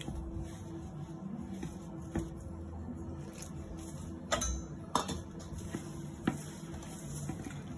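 Stainless steel bowls clinking a few times in the second half as water is tipped into a bowl of flour, over the soft rubbing of hands mixing the flour into dough.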